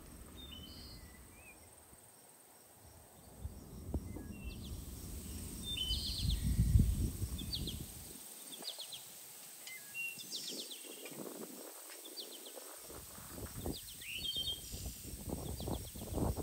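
Small birds chirping repeatedly against mountain wind rumbling on the microphone, the wind gusting loudest about halfway through. A few short knocks come near the end.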